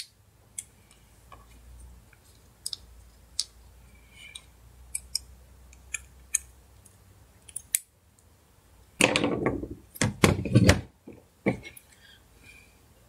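Small clicks and taps of a screwdriver tip and plastic phone parts being pried and handled, with a louder burst of clattering and scraping about nine seconds in as parts are moved on the table.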